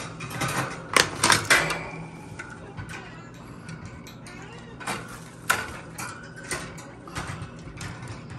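Wire bird cage rattling and clinking as hands work a toy into it, with scattered sharp clicks, a loud cluster of three about a second in and a few more around the middle.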